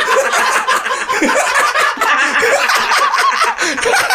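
Several men laughing together, loud and hearty.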